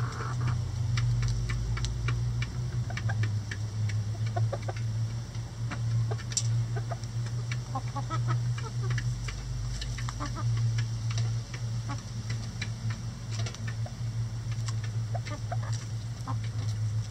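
Chickens clucking in short scattered calls while pecking at a hanging head of purple cabbage, with many quick sharp taps of beaks on the leaves. A steady low hum runs underneath and is the loudest part.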